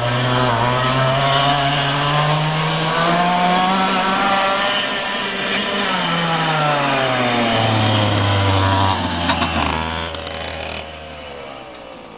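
Racing kart engine running hard, its pitch rising for about four seconds, then falling as it comes off the throttle, holding lower and fading away near the end.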